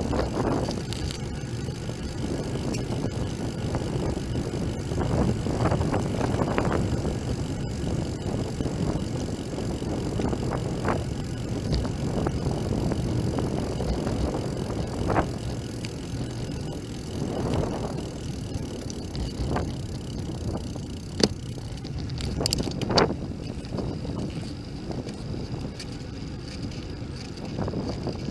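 Bicycle in motion, recorded on a bike-mounted camera: steady low rumble of tyres on the road and wind across the microphone, with a few sharp knocks and rattles from bumps.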